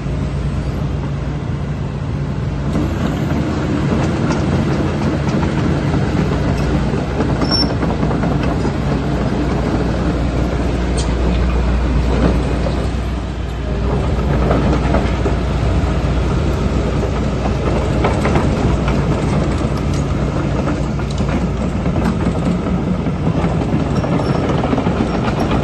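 Hitachi ZX225USRLC-3 excavator running, its diesel engine and hydraulics giving a steady low drone with metallic clattering over it. The sound dips briefly about 13 seconds in, then picks up again.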